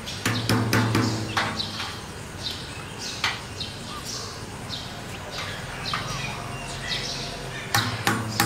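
Birds chirping, with sharp irregular taps and clicks as a hand tool works on PVC pipe fittings. A low hum comes in briefly shortly after the start and again near the end.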